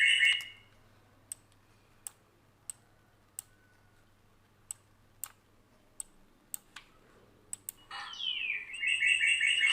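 Single computer mouse clicks, about a dozen spaced irregularly over a low electrical hum. Near the end, looped playback of a bird-call sound effect with an echo delay starts again.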